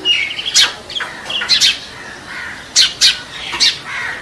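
Birds calling: a string of short, sharp, high chirps, several in quick succession at a time, with brief gaps between.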